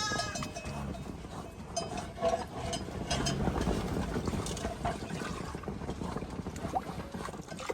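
Wind buffeting the microphone, an uneven rumbling noise with scattered small knocks.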